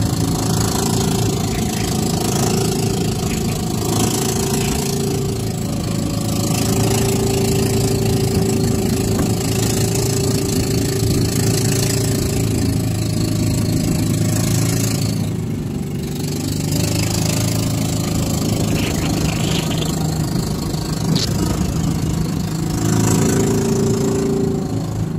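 Engine of a motorized outrigger boat (bangka) running steadily under way, a constant drone with a hiss of wind and water over it.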